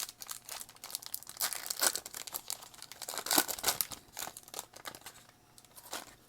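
Wrapper of a 2020 Topps Series 1 baseball card pack being torn open and crinkled: a dense run of crackles that dies down about five seconds in.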